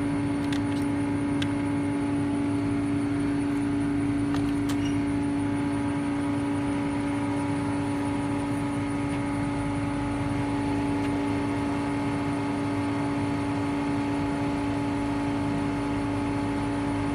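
A steady mechanical drone with a constant pitch and low rumble, unchanging throughout, with a few faint clicks.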